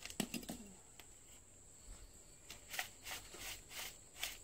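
Faint rustling and scraping of hands working potting soil in a black plastic nursery pot, with several short scrapes in the second half. A brief voice-like sound just after the start.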